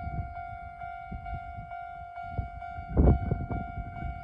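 Railway level-crossing alarm ringing as a steady high tone, over wind buffeting the microphone, with a strong gust about three seconds in.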